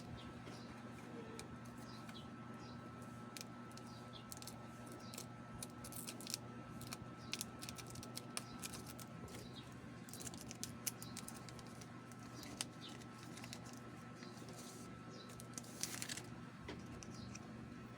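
Light clicks and a crinkle of playing cards and plastic packaging being handled, over a steady low hum. Faint short chirps repeat every second or so.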